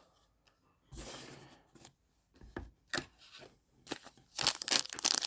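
Foil wrapper of a trading-card pack crinkling and being torn open, a dense crackle starting about four seconds in. Before it come a brief rustle and a few light clicks.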